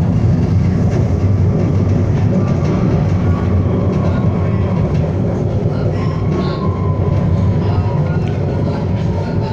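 City tram running on its rails: a steady, loud low rumble, with a faint high whine that comes in about six seconds in and falls slightly in pitch.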